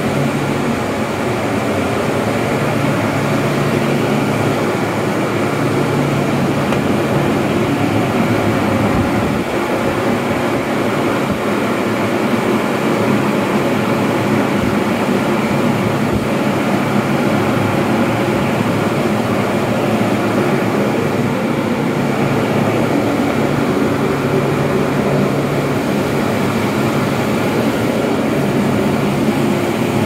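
Electric heater and fans of a bed bug heat-treatment set-up running together: a loud, steady rush of blown air with a low hum underneath.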